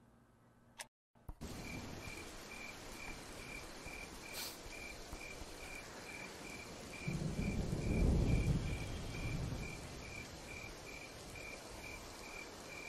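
After a second of near silence, night ambience begins: crickets chirping in an even pulse, about three chirps a second, over a steady hiss. A low rumble of distant thunder swells about seven seconds in and fades out by about ten seconds.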